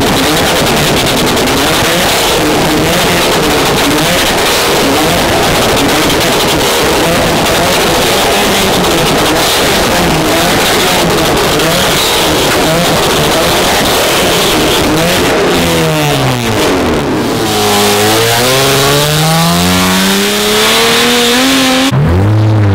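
A Ford Mustang GT's V8 and a Nissan Sentra revving hard side by side, their flame-tuned exhausts popping and crackling loudly. From about two-thirds in, the revs sweep plainly up and down, and near the end a car accelerates away with a rising engine note.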